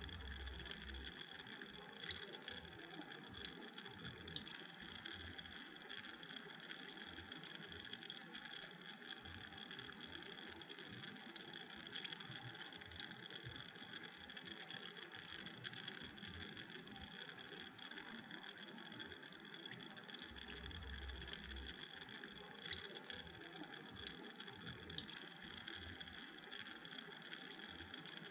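Carbonated drink fizzing: a steady high hiss of bubbles bursting, sprinkled with many tiny crackling pops.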